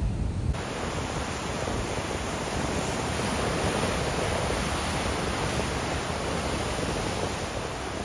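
Ocean surf breaking over rocks and washing back: a steady hiss of foaming water. In the first half second there is low wind rumble on the microphone, which stops at a cut.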